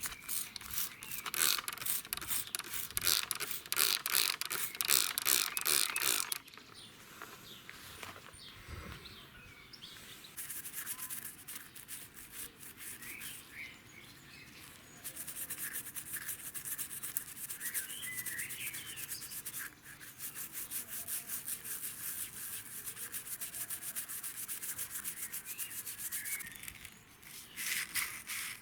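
Rapid back-and-forth rubbing strokes on the old cup, loudest in the first six seconds, then quieter and resuming. Birds chirp faintly in the background.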